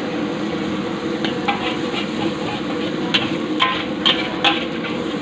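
Metal spatula stirring and scraping food frying in an aluminium wok over a steady sizzle, with sharp clinks of the spatula against the pan several times, most of them in the second half.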